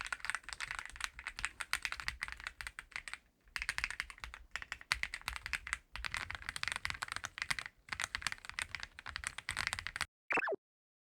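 Fast typing on a Reborn67 gasket-mounted mechanical keyboard: rapid, dense key clacks in runs with brief pauses. About ten seconds in the typing stops abruptly and a short falling tone sounds before it goes silent.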